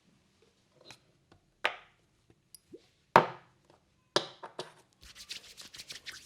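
Hands striking a head during a massage: a few single sharp slaps, then a fast run of chopping strokes, about nine a second, near the end.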